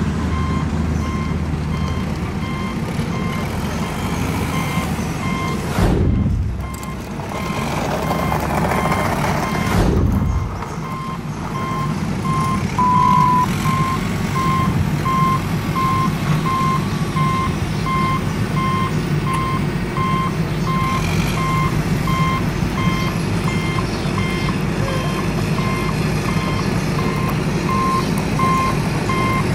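Electronic reversing-alarm beeps, a steady run of evenly spaced beeps over a constant low motor hum. Two brief louder swells come at about six and ten seconds in.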